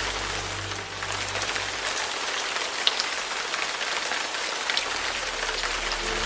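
Steady rain falling, an even hiss with individual drops ticking sharply here and there.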